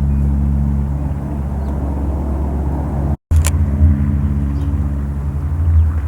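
A steady, low outdoor drone with several faint humming tones above it, amplified, which the recordist takes for one of the reported 'strange sky noises' and says was not boat or train horns. The sound cuts out completely for an instant about three seconds in, then resumes.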